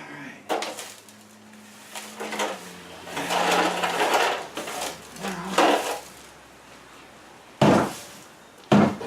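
Broom strokes scraping dust and coarse grit across a concrete garage floor, then two sharp knocks about a second apart near the end, the loudest sounds here.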